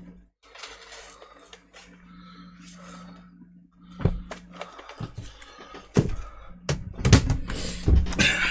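Objects being handled and moved, indoors at the table: a knock about four seconds in, then a run of clicks and knocks and a burst of rustling near the end. A steady low hum runs underneath.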